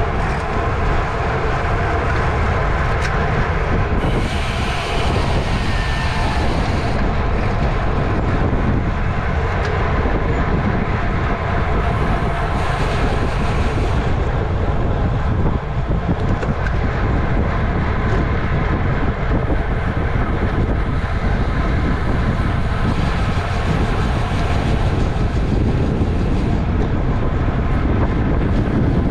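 Steady, loud wind rush across the microphone of a camera mounted on a racing bicycle moving at race speed.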